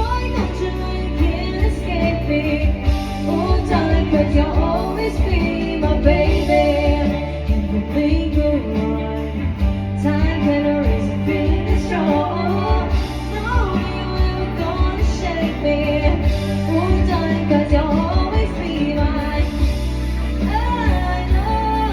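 Live band playing a pop song with a female singer, over a steady bass and drum beat.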